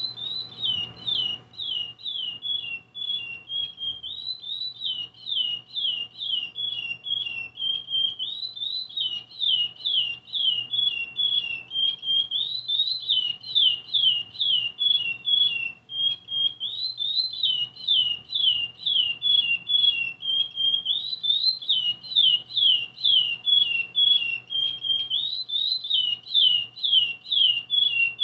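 Male curió (chestnut-bellied seed finch) singing its song over and over. Each phrase is a run of about ten quick whistled notes, each sliding down, ending in a few short flat notes, and the phrases repeat every four seconds or so.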